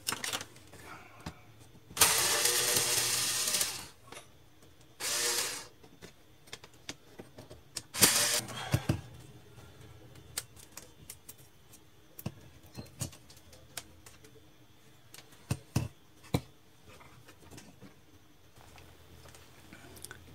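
Three short loud bursts of a whooshing motor-driven tool, the first about two seconds long, the others shorter. Light clicks and knocks of parts being handled run between them.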